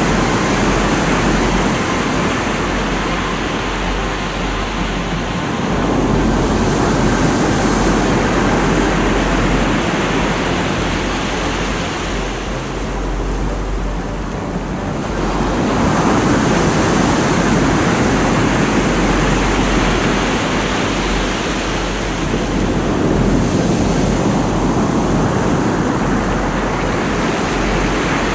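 Sea surf breaking and washing up a pebble beach, a steady rush that swells and eases in long surges every several seconds.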